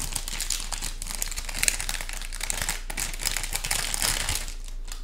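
Plastic and anti-static shielding bags crinkling and rustling as hands unwrap a small expansion card; the crinkling dies away near the end.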